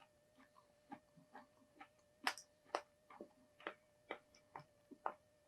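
Faint, irregular wet clicks and smacks of a child chewing jackfruit, two to four a second, over a faint steady hum.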